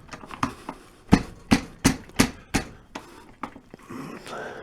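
Repeated sharp knocks, about three a second, as the steel stem of a replacement desk-chair caster is driven into the hole in the chair base; they thin out near the end.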